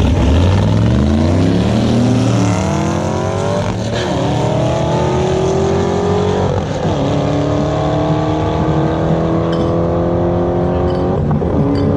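LS V8 car accelerating hard at wide-open throttle, engine pitch climbing steadily and dropping sharply at each of three upshifts, about four, seven and eleven seconds in.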